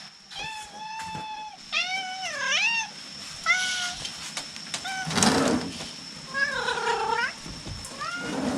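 A cat meowing repeatedly in a high, kitten-like voice, about six calls, some held flat and some wavering up and down, while shut out and calling to be let in. A short rushing noise comes twice, about halfway through and near the end.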